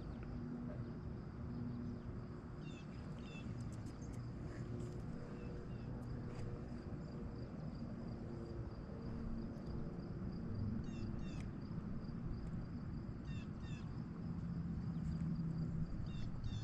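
Small birds chirping in short repeated clusters, a few times, over a low steady rumble of outdoor background noise, with a thin steady high whine.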